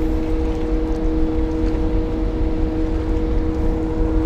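Boat motor running steadily: a constant hum over a low rumble.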